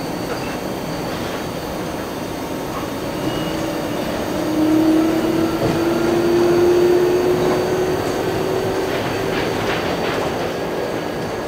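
Seattle Monorail train running along its elevated concrete guideway, heard from inside the front of the car: a steady running rumble, with a whine that rises slightly in pitch and grows louder through the middle.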